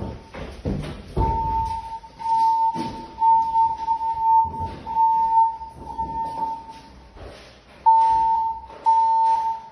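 Fire alarm speaker sounding its alert tone between voice-evacuation messages: a steady high beep of about a second, repeated over and over with short gaps. There are a few low thumps in the first second or so.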